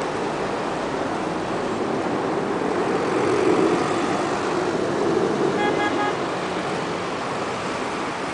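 Road traffic noise of passing cars, swelling in the middle as vehicles go by. About two-thirds of the way in a car horn gives three quick short beeps.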